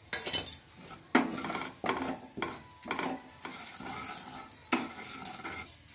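Whole spices (dried red chilli, whole garam masala and cumin seeds) sizzling in hot oil in a kadai, stirred with a wooden spatula in a series of separate scraping strokes.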